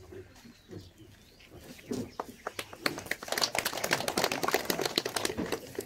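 A small group of people clapping, starting about two seconds in, building quickly, and stopping near the end.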